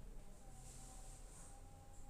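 Near silence: room tone with a low hum and a faint steady thin tone.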